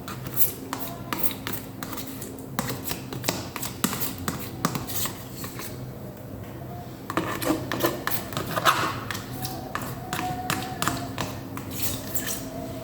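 A knife scraping and knocking against a butter container and bowl, scooping butter into flour for dough: irregular clicks and scrapes, busiest about seven to nine seconds in.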